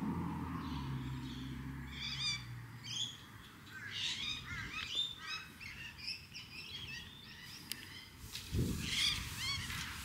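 Birds chirping: a quick string of short, rising and falling calls starting about two seconds in. A low hum fades out a few seconds in.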